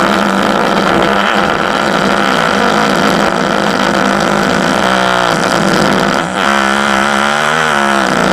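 A long, loud fart sound, a steady engine-like drone whose pitch wavers up and down about halfway through and again near the end.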